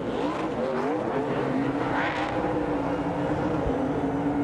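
NASCAR Truck Series V8 engine revving, its pitch sweeping up and down and then held steady at high revs from about a second and a half in, as the truck does a burnout with its rear tyres spinning.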